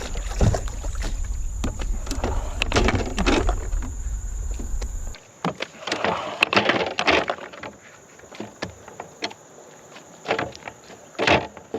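Knocks and handling noises in a canoe as a channel catfish is brought aboard, over a low rumble that cuts off suddenly about five seconds in; after that, sparser knocks and short bursts, one louder near the end.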